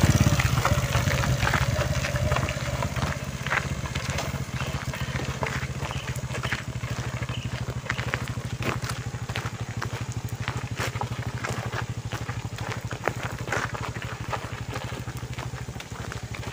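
Motorcycle engine running steadily as it climbs a steep gravel road, loudest at the start and easing slightly after, with scattered sharp clicks of gravel.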